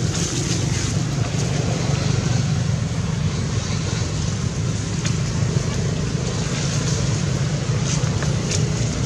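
A steady low hum under an even hiss, holding level throughout with no animal calls.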